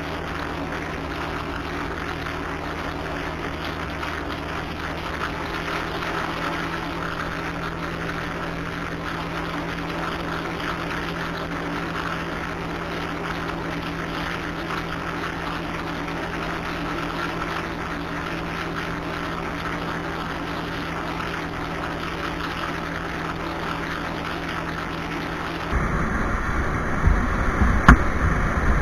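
Motorcycle engine running at a steady cruising speed, an even drone that does not change. Near the end the sound switches abruptly to wind buffeting the microphone, with several loud thumps.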